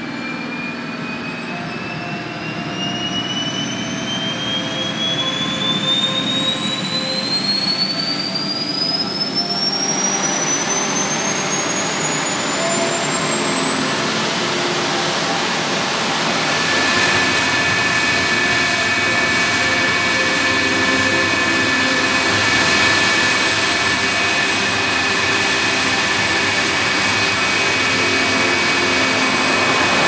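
F-4 Phantom's J79 turbojet spooling up during start: a high whine climbs steadily in pitch for about sixteen seconds. It then settles into a steady whine over a broad jet roar as the engine reaches idle.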